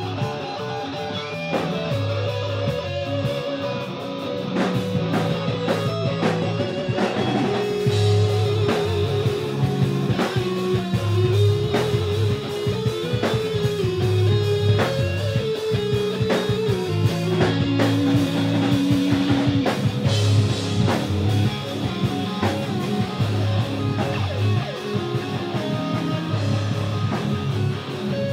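Live rock band playing an instrumental: an electric guitar plays a lead line of held, bending notes over a second electric guitar and a drum kit.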